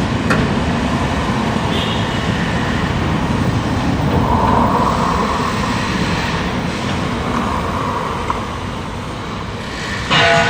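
Steady heavy-vehicle rumble, with a short, loud horn-like tone of several pitches starting near the end.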